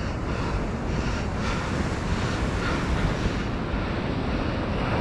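Steady wind rumble on the microphone, mixed with the wash of ocean surf breaking.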